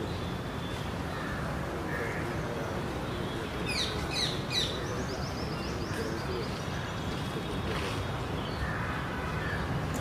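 Birds calling: three quick shrill calls falling in pitch about four seconds in, followed at once by a fast run of high, short notes, over a steady low background noise.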